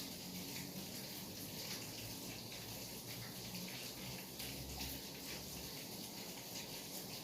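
Steady rain falling, with many separate drops tapping through the even hiss.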